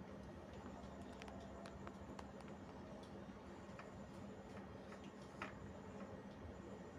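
Faint scattered clicks and taps of plastic ring-light phone-holder parts being handled, the clearest about five seconds in, over a low steady hum.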